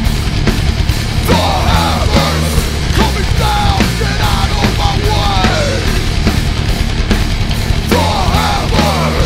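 Heavy metal band recording: distorted electric guitars, bass and drums playing loud and dense without a break, with notes sliding up and down in pitch over the top.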